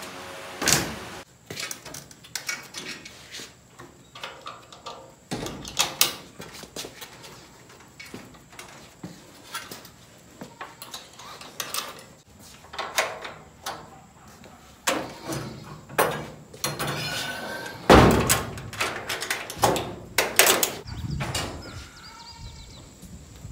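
Irregular knocks, clunks and rattles of a wooden chicken coop on a wheeled metal frame being handled and rolled across a concrete floor, with the loudest bang about 18 seconds in.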